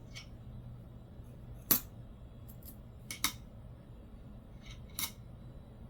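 A few short, sharp clicks. The loudest comes a little under two seconds in, two come close together about three seconds in, and another about five seconds in.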